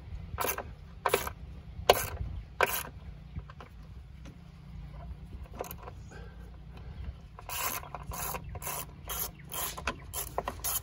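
Quarter-inch drive socket ratchet clicking as it is swung back and forth to loosen the battery hold-down bolt. A few evenly spaced clicks come first, then a quieter stretch, then a quicker run of clicks near the end.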